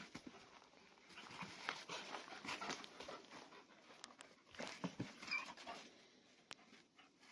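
Dogs panting softly, with scattered rustling and a few sharp faint clicks.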